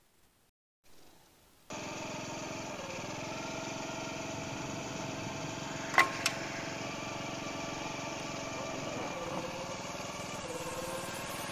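A 1994 Honda Grand's small single-cylinder four-stroke engine running steadily, starting abruptly after a near-silent second and a half, with a few slight dips in pitch and two sharp clicks about six seconds in.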